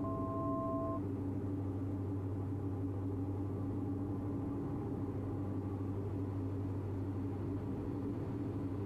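Steady cabin drone of a Diamond DA42's twin engines and propellers in cruise on approach. A two-note electronic tone sounds for about a second at the start.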